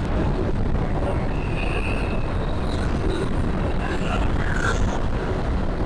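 Steady wind rush and road noise on the camera microphone of a motorcycle riding at speed, with the bike's engine running underneath.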